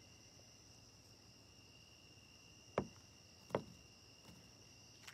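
Steady chorus of night insects, a continuous high chirring drone on two pitches, with two sharp knocks under a second apart near the middle.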